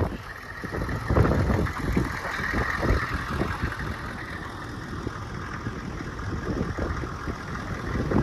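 Blizzard wind gusting hard, buffeting the microphone with irregular low rumbles over a steady hiss.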